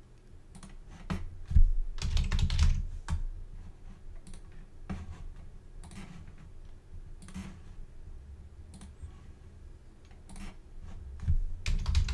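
Computer keyboard and mouse clicking: scattered single clicks, with a quick run of keystrokes about two seconds in and another near the end, as file names are typed into a save dialog.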